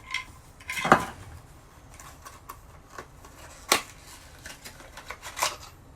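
Plastic parts of a cordless vacuum cleaner being handled: irregular clicks and knocks, the loudest about a second in and two more near the middle and end, with lighter ticks between.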